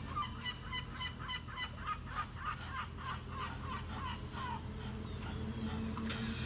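Domestic fowl calling in a quick run of short calls, about two a second, that stop after about four and a half seconds, over a steady low hum.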